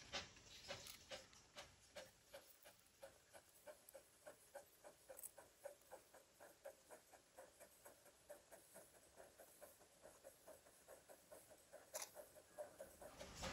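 Sharp Stewart-built Darjeeling Himalayan Railway B-class saddle-tank steam locomotive chuffing, faint and distant, with an even beat of about four exhaust puffs a second as it works its train.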